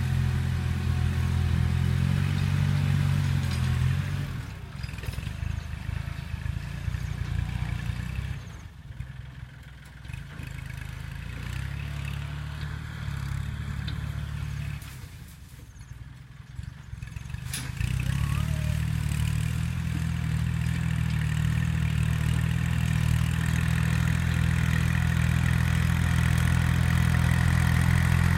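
Kubota L3608 tractor's diesel engine running. It is loud at first, drops away and dips lower through the middle, then comes back loud and steady for the last ten seconds.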